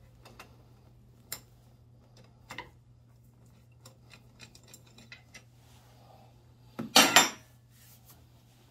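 Socket wrench with a long steel extension bar working a bolt on a scooter: a few sharp metallic knocks, then a run of light clicks. About seven seconds in comes the loudest sound, a brief clatter of metal tools being set down.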